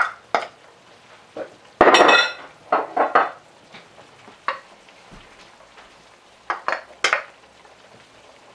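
Wooden spoon knocking and scraping against a glass bowl and the pot as chopped tarragon and minced garlic are tipped into a stew pot: a string of separate clacks and clinks, the loudest cluster about two seconds in.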